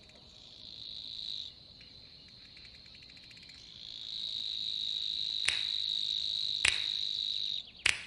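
An insect trills steadily at a high pitch: briefly at the start, then again from about four seconds until shortly before the end. A few sharp clicks come in the second half.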